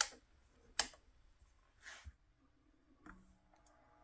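Sharp clicks of controls being switched and turned on a restored Philco tube radio, one at the start and one under a second later, then a softer click about three seconds in. After it a faint hum with several steady tones comes up from the radio's speaker as the voltage is raised and the set begins to play.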